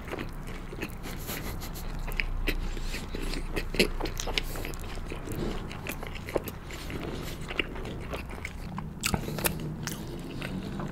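A person chewing sauced boneless fried chicken with mouth closed, close to the microphone, making irregular small clicks throughout.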